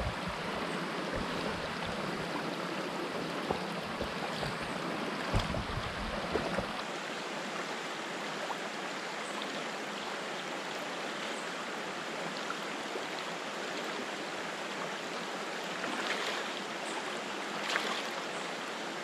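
Shallow rocky river rushing steadily over stones. Low bumps and rumble sound through the first several seconds. Near the end come a couple of brief splashes from feet wading in the shallow water.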